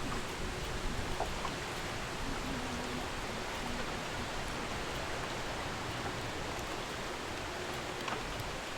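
Steady, even hiss of rain and wind on open lake water, with a few faint scattered ticks.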